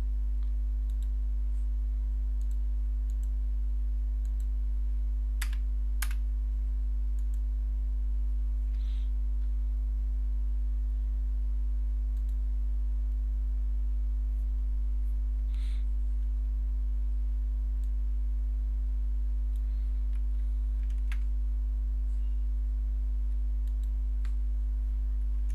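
Steady low electrical hum, with a few scattered clicks of a computer keyboard and mouse.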